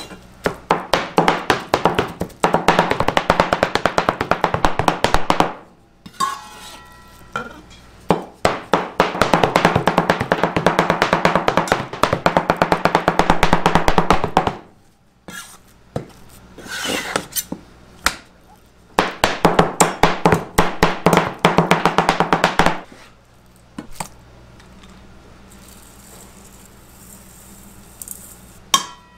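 Two cleavers rapidly chopping raw shrimp into a paste on a plastic cutting board, in several long runs of fast strikes with short pauses between. The chopping stops about three-quarters of the way through, leaving only quieter sounds.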